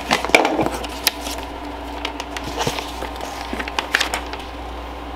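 Cardboard shipping box being handled and opened: scattered crackles and knocks, thickest in the first second and again around four seconds in.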